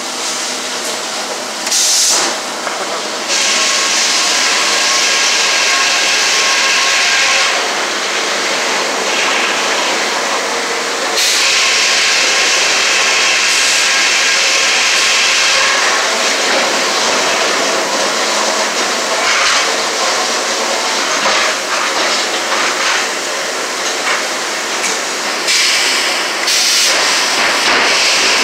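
Sawmill head rig working a log, heard from inside the sawyer's cab: a steady, loud mechanical din of the carriage and headsaw. Three times, a louder hissing stretch lasts a few seconds each as the log is run through the saw.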